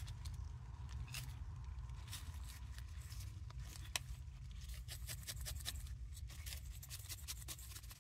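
Glass jar of crushed paradichlorobenzene mothball powder handled in rubber-gloved hands: its metal screw lid is twisted and the jar tilted, giving irregular gritty scraping and ticking.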